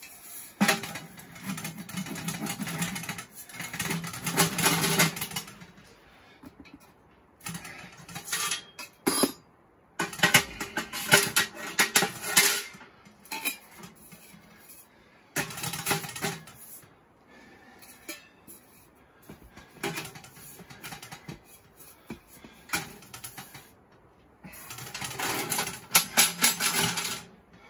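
Irregular bursts of clattering and rustling, with sharp knocks and clinks, as camping gear is handled while camp is set up; the bursts come and go with short quiet gaps between them.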